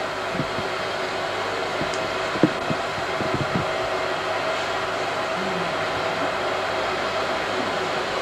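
Steady even whooshing hiss with a faint hum running through it, and a few soft knocks around two to three and a half seconds in.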